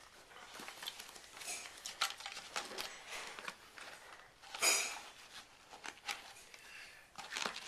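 Parts and packaging of a Perfect Situp exercise device being handled during assembly: scattered rustles and light knocks, the loudest a short rustle about four and a half seconds in.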